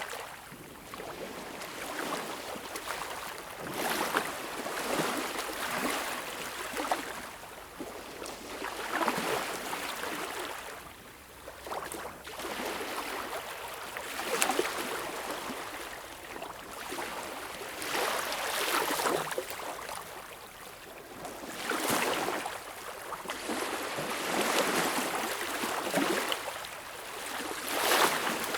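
Small, calm waves washing up on a beach shore, each one swelling and fading over a few seconds, with about seven washes.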